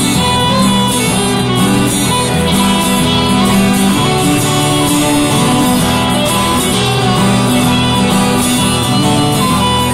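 Live Irish folk band playing an instrumental passage: strummed guitar and plucked strings with fiddle, steady and continuous, with no singing.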